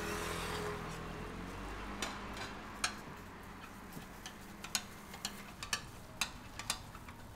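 Batter-and-vegetable egg pancake sizzling on a hot flat steel griddle, with a hiss that is loudest for the first couple of seconds. After that, a metal spatula clicks and scrapes against the griddle in sharp, irregular taps as it cuts the pancake into portions.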